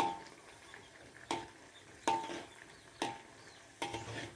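A cooking utensil knocking against a frying pan about five times, roughly once a second, each knock ringing briefly, as tempe is stirred while it fries.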